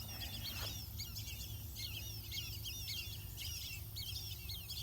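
A flock of whistling ducks calling: many short, high whistles overlapping several times a second.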